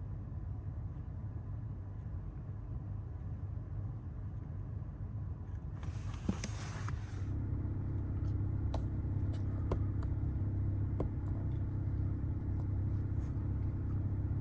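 Car running with a steady low rumble. There is a brief hiss about six seconds in, after which the rumble grows a little louder, with a few faint clicks.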